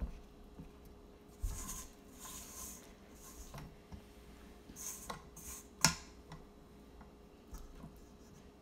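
A spatula scraping down the sides of a stand-mixer bowl: short scrapes and light knocks against the bowl, with one sharper knock about six seconds in.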